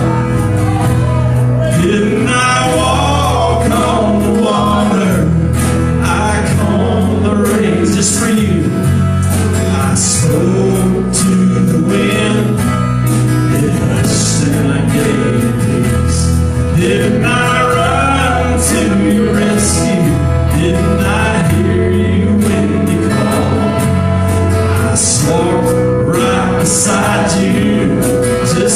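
Gospel song played live by a small worship band: a man singing over acoustic guitar, with a steady bass underneath and cymbals.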